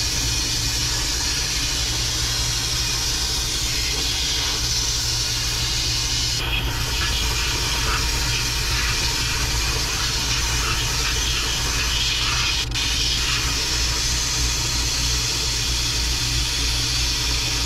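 Sandblasting cabinet gun blasting abrasive onto small rusty metal gun parts: a loud, steady hiss of compressed air and grit, with a steady low hum underneath.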